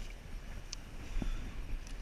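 Wind buffeting the microphone with water slapping against a plastic kayak hull on choppy sea, and a few light knocks from the boat about a second in.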